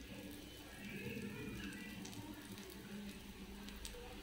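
Faint sizzling of oil frying around a wheat-flour dosa on a hot tawa.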